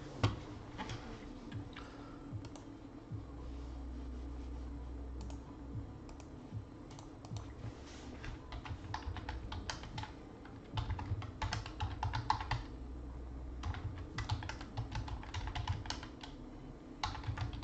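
Typing on a computer keyboard: irregular runs of quick key clicks with short pauses between words.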